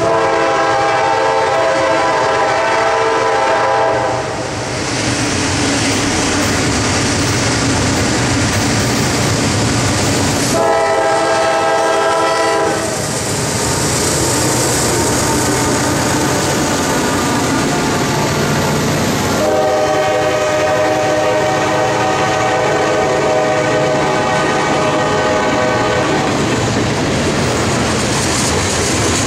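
CSX freight train passing close by, its lead diesel locomotive's multi-chime air horn sounding three blasts: a long one at the start, a short one about ten seconds in, and a long one from about twenty seconds in. Between and under the blasts run the locomotives' engines and the wheels rolling over the rails.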